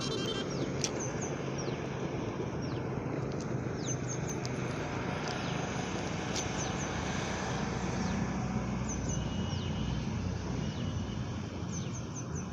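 Steady low rumble of engines with birds chirping: a few short, high, falling chirps repeat every few seconds.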